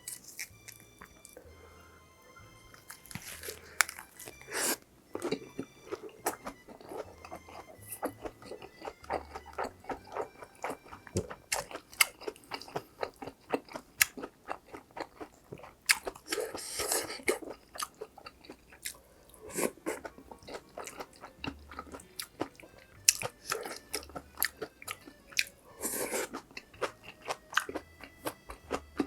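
Close-miked eating of a dakgalbi meal: steady chewing and crunching with frequent sharp mouth clicks and a few longer wet, noisy swells, over soft background music.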